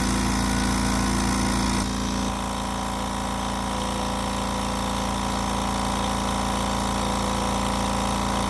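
Kobalt Quiet Tech 4.3-gallon air compressor running steadily as its pump fills the tank after a check valve repair. It is quiet for a compressor, and the hum drops slightly about two seconds in.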